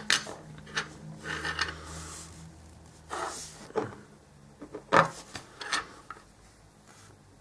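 Hands handling paint pots and small model parts on a wooden tabletop: a series of light knocks and clicks, the loudest about five seconds in, with a brief scrape a little after three seconds.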